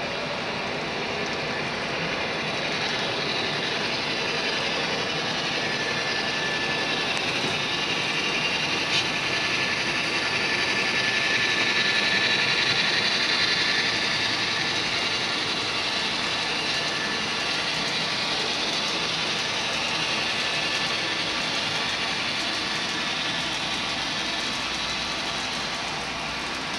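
Model train of covered hopper cars rolling along the layout track: a steady clicking and rolling of the small wheels on the rails, louder around the middle as the cars pass closest. There is a single sharp click about nine seconds in.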